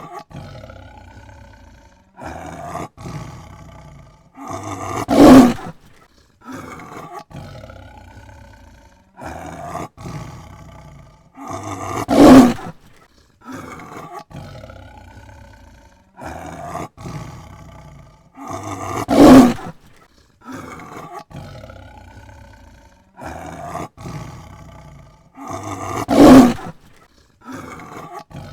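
Tiger roaring in a repeating sequence: a few shorter, quieter calls build up to one loud roar about every seven seconds, four loud roars in all.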